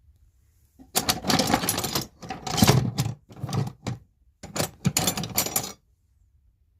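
Hands rummaging through a box of tools, with objects clattering and scraping in four or five bursts from about a second in until near the end.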